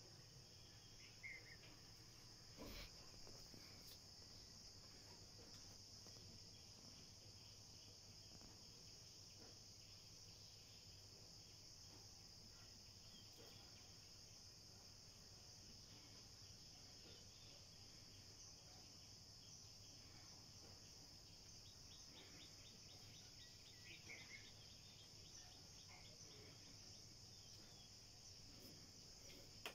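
Faint, steady high-pitched chorus of insects droning without a break, with a few short bird chirps about a second in and again near the end.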